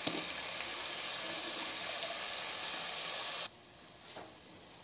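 Chicken pieces frying in butter in a pressure cooker, a steady hissing sizzle. About three and a half seconds in the sizzle cuts off suddenly, leaving a much fainter hiss.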